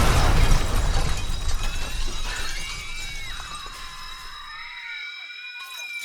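Aftermath of a bomb blast in a film: the rumble dies away while broken glass and debris clatter down, fading over several seconds under a steady high ringing tone. Wavering cries begin to come through from about halfway.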